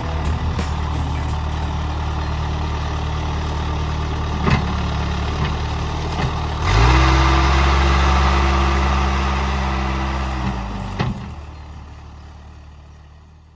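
Compact diesel tractor engine running steadily while scraping dirt, then revving up under load about seven seconds in and easing off around eleven seconds, with a couple of short knocks. The sound fades out near the end.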